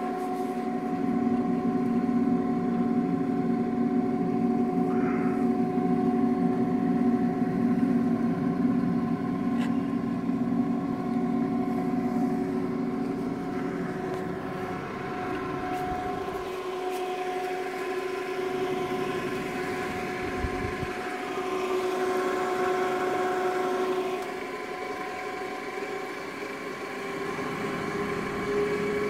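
OMG MB225 double-shaft paddle mixer running: a steady mechanical hum with a whine of several held tones, fuller and louder in the first half. Near the end one tone rises slightly.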